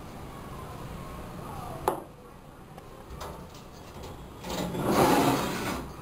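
A sharp click about two seconds in, then a loud rustling, rubbing noise that swells and fades over about a second and a half near the end.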